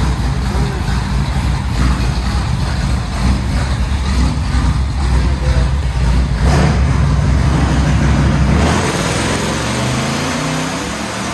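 A vehicle engine running hard at raised revs, then its pitch falling away as the revs drop about nine seconds in.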